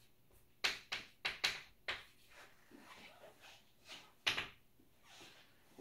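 Chalk tapping and scratching on a chalkboard as symbols are written: a quick run of short taps in the first two seconds, then one sharper tap a little after four seconds.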